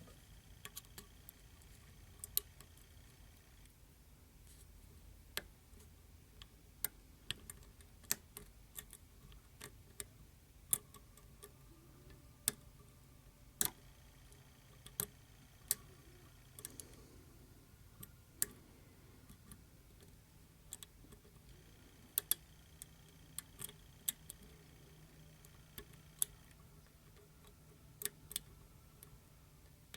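Lock pick and tension wrench working inside a Bell slider lock: irregular small metallic clicks and ticks as the hook pick moves the sliders, some with a faint ring.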